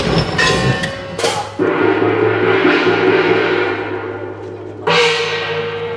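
A large gong, the float music of a Nagasaki Kunchi ship float, is struck a few times, and each stroke rings on for several seconds over low drum beats.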